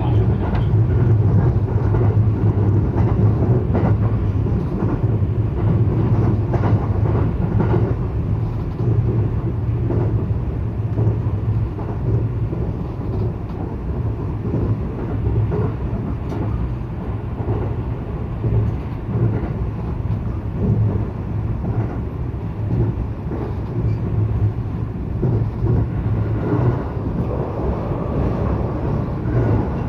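Electric local train running at speed, heard from inside the passenger car: a steady low rumble and hum from the wheels and motors, with light clicks from the rails. It eases off slightly after about ten seconds.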